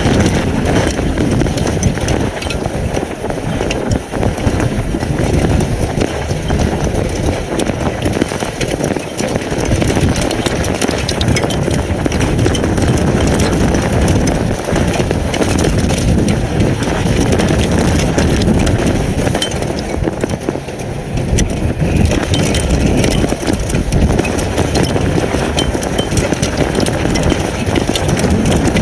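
Derecho storm wind buffeting an outdoor webcam's microphone in a steady low rumble, with many small sharp impacts of wind-driven hail and rain striking it throughout.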